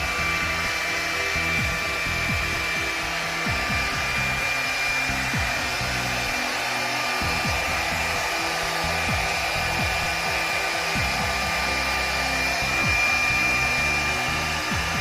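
Hand-held hair dryer running steadily during a blow-dry, a constant rush of air with a steady high whine from the motor.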